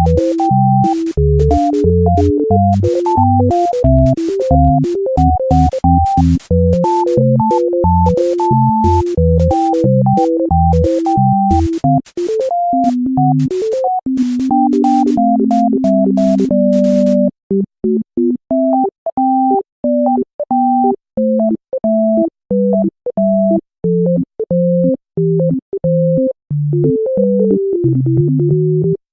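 Background music: a bouncy synthesizer and keyboard melody over a beat with bass. About seventeen seconds in, the beat and bass stop, leaving a run of short, separate keyboard notes.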